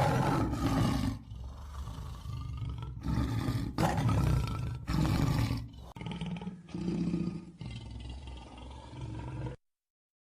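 A big cat roaring in a series of low roars about a second apart. About six seconds in, it switches to another recording of similar roars, which cuts off to silence near the end.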